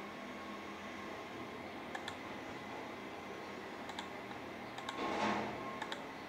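Computer mouse clicks: a double click about two seconds in, a single click at four seconds, and two more double clicks near the end, over a steady background hum. A brief louder rush of noise comes about five seconds in.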